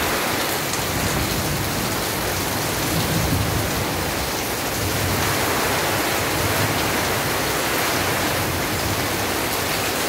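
Heavy rain falling steadily on trees and waterlogged ground, an even, unbroken hiss.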